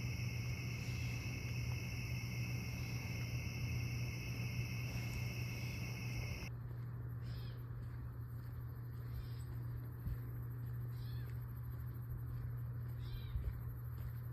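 Steady high trilling of insects that stops abruptly about six and a half seconds in, after which short animal calls repeat every second or two, over a steady low hum.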